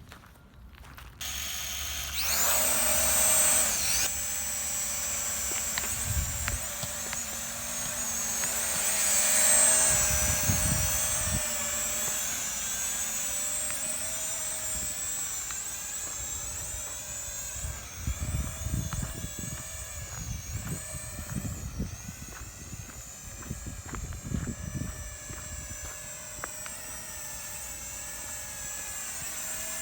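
Small multirotor drone's propellers spinning up about two seconds in, then a steady high whine whose pitch wavers as it flies. Gusts of strong wind buffet the microphone with low rumbles at times.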